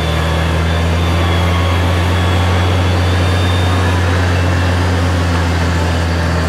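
Steady, loud mechanical drone of a winch recovery of a Toyota Land Cruiser stuck in mud, the machinery held at an even pitch throughout.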